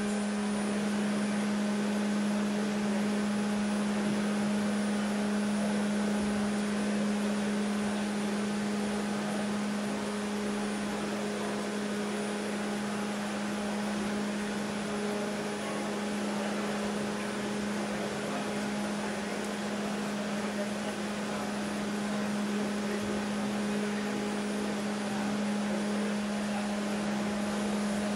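Large fans running steadily, with an even rushing noise over one steady low hum.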